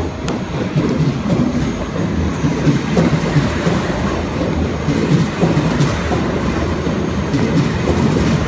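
Deutsche Bahn ICE high-speed train pulling into the platform, its cars running past close by with a steady rolling noise from the wheels and running gear.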